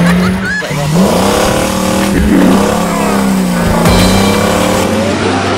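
Racing-car engine revving, its pitch rising and falling.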